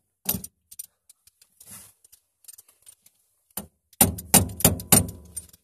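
An adjustable wrench used as a hammer, tapping a steel shaft key into the keyway of a chain-drive sprocket: sharp metal-on-metal clinks that ring. There is one hard strike near the start, a few lighter taps, then a quick run of about four strikes about four seconds in. The key is being driven back in to lock the sprocket to its shaft after it slid out.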